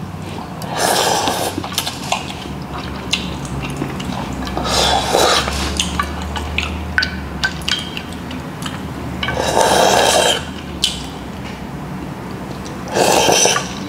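Noodles slurped from a glass dish four times, each slurp about a second long, with light clicks of chopsticks against the glass between them.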